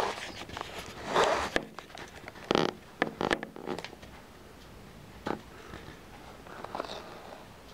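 Irregular rustling and scraping with sharp clicks, like clothing and handling noise, busiest in the first half and then fading to a quieter stretch with one more click.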